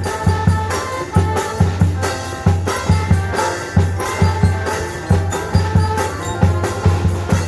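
Music with a driving, syncopated drum beat and a heavy bass under sustained instrumental notes.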